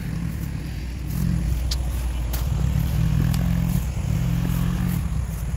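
Motorcycle engine running at low speed, its note pulsing and rising and falling a little, with a few faint clicks.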